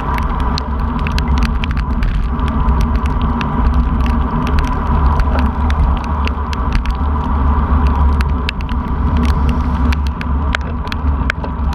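Low, steady rumble of wind and road vibration on a bicycle-mounted camera riding a wet road in heavy rain, with many sharp ticks of raindrops striking the camera.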